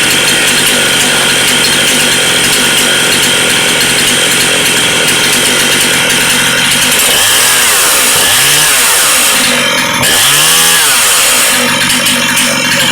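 Ported Jonsered 535 two-stroke chainsaw with an opened-up muffler, running at high revs. In the second half its engine note dips and rises twice as the revs change.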